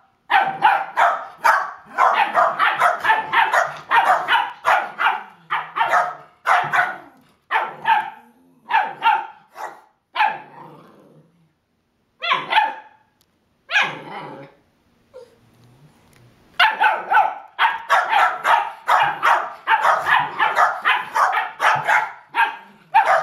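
A 10-week-old puppy and an older dog barking at each other in quick volleys, two or three barks a second. The barking thins to a few single barks about halfway through, then picks up again as fast as before.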